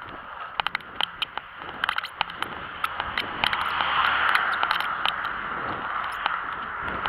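Rushing wind and road noise on a moving camera's microphone, swelling about three seconds in as cars approach, with irregular crackling clicks throughout.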